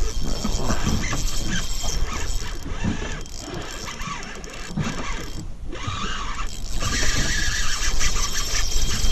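Spinning reel being cranked against the pull of a hooked fish, its gears whirring and squealing, with a brief break a little past the middle.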